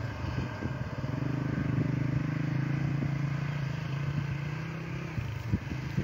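Combine harvester's engine running steadily as it works the wheat, a level drone that eases off about five seconds in. Wind buffets the microphone with a few low thumps near the end.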